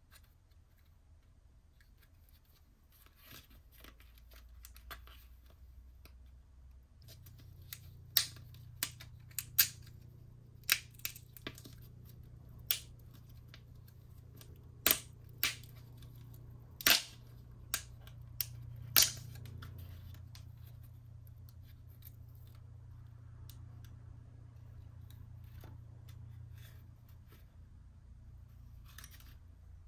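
Thin clear plastic blister packs crinkling and clicking as fingers press and peel them open to get the gummy out, with about a dozen sharp snaps in the middle stretch and a low steady hum underneath.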